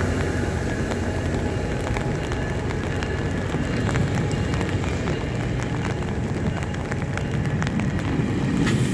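ACE commuter train's bilevel passenger coaches rolling past: a steady rumble of wheels on rail with scattered light clicks and squeaks.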